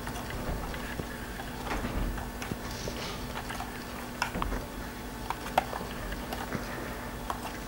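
Handling noise from a plastic Cheerson CX-20 quadcopter being turned over in the hands: scattered light clicks, taps and soft knocks, over a faint steady hum. Its motors are not running.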